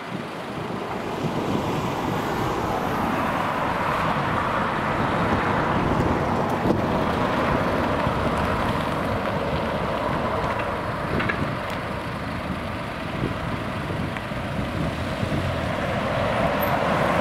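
Steady engine and road noise from motor vehicles close by, including a van driving slowly past, swelling a little twice.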